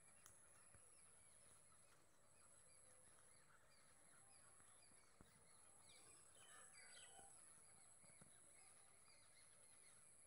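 Near silence: faint outdoor ambience with many faint, quick bird chirps and a steady high-pitched whine.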